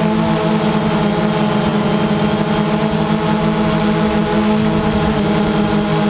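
DJI Phantom 2 quadcopter's rotors humming steadily, picked up by the GoPro on board, over a hiss of rushing air. The pitch wavers slightly as the motors adjust.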